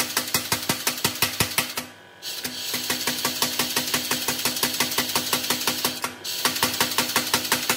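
Kinyon-style pneumatic power hammer pounding a hot bar of W2 tool steel in a fast, even rhythm of about five blows a second. The blows break off briefly about two seconds in, come back lighter for a few seconds, and return to full strength after a short pause just after six seconds.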